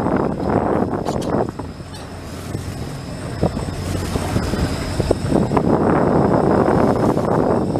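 Sea-Doo jet boat running on open water, with wind and water noise; the sound eases off about a second and a half in and builds back up.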